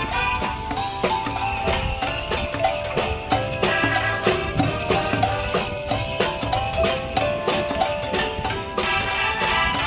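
Music with a melody, and sleigh bells jingling in a steady rhythm; the sleigh-bell sound is played on electronic air drumsticks.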